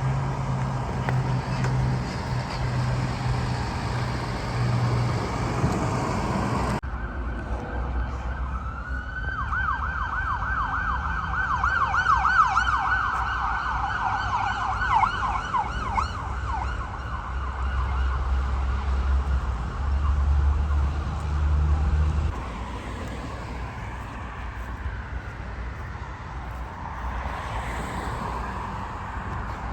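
Road and vehicle noise, then an emergency vehicle's siren in a rapid yelp, its pitch rising and falling several times a second for about seven seconds, over a low rumble.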